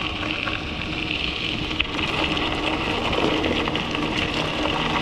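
Bicycle tyres rolling over loose gravel and scree, a steady crunching hiss dotted with small ticks and rattles.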